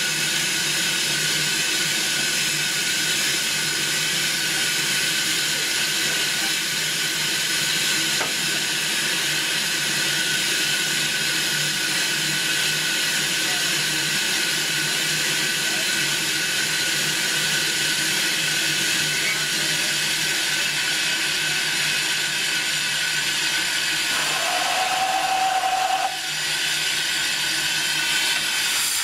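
Steam locomotive letting off steam: a steady hiss with no beat, and a short steady tone lasting about two seconds near the end.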